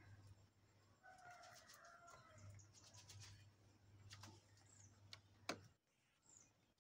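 Faint bird call lasting about a second, starting about a second in, over a low steady hum. A few soft clicks follow, then one sharper click a little past the five-second mark.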